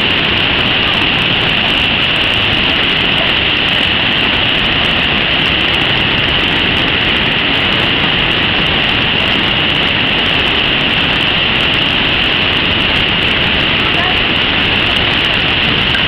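Steady rush of white water from a wide, fast mountain river running through rapids.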